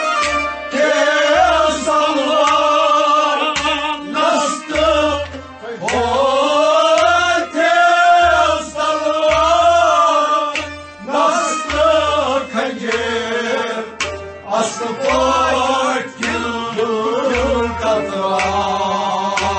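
Kashmiri Sufi song: a man singing long, bending melodic lines over a steady low drum beat.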